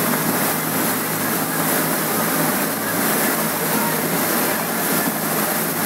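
A small boat's motor running steadily under way, with a constant rush of water along the hull.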